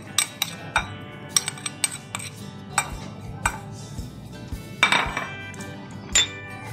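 A metal spoon and glass bowls clinking and knocking as dried mint and coriander powder is tipped into a glass bowl and stirred, in sharp irregular clicks, with the loudest knocks near the end. Soft background music plays underneath.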